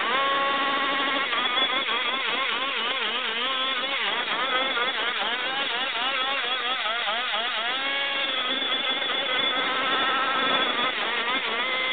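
Ported 29cc Zenoah two-stroke engine of a Goped scooter, fitted with a coiled expansion-chamber pipe, running at high revs in a burnout with the rear tire spinning on asphalt. Its pitch wavers up and down as the throttle is worked, holding steady briefly near the start and again about eight seconds in.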